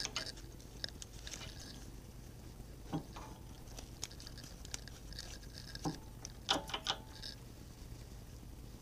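Scattered light metallic clicks and clinks as an Atlas lathe's change gears are handled and meshed on the banjo and a wrench is set on a nut, with a quick cluster of clicks about six and a half seconds in. A faint steady low hum runs underneath.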